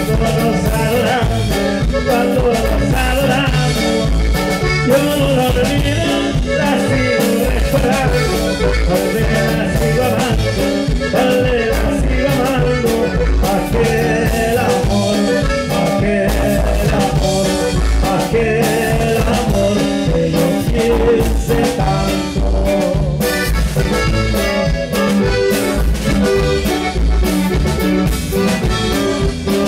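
A norteño band playing live: a button accordion carrying the melody over bass and drums with a steady beat, and a man singing.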